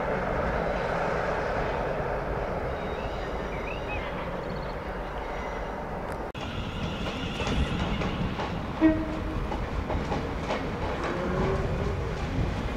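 A train running through the station, heard as a steady rumble. The sound drops out briefly and suddenly about six seconds in, and a short, loud, sharp sound comes near nine seconds in.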